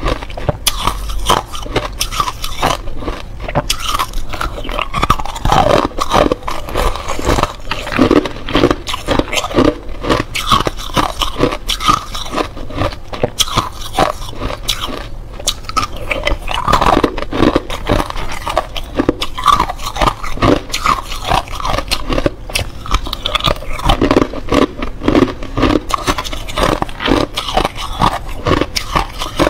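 Clear ice cubes bitten and crunched between the teeth right at a microphone: a dense, unbroken run of sharp cracks and crunches, with ice cubes clinking and scraping in a glass bowl as more are picked out.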